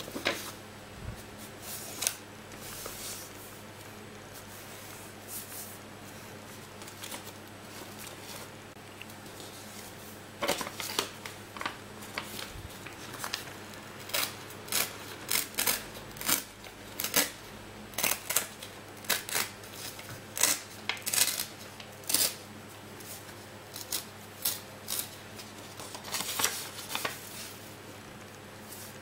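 A sheet of printer paper being folded, creased and torn apart along its folds by hand: a long run of short, crisp crackles and rips, scattered at first and coming thick and fast through the second half.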